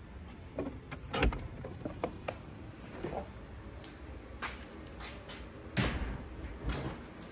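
A door being opened and shut: a handful of scattered knocks and clunks, the sharpest about a second in and again near six seconds, over a low background hum.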